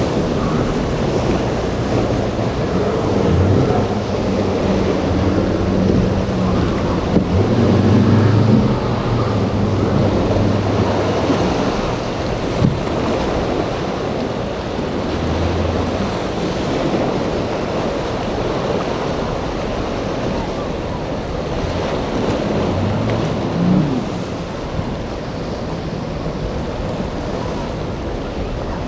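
Surf breaking and wind buffeting the microphone. Boat engines are heard under it, rising and falling through the first half and again briefly later on.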